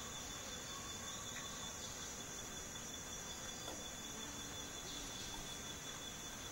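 Steady high-pitched insect chorus: an even shrill hiss with a thinner, steady whine just below it.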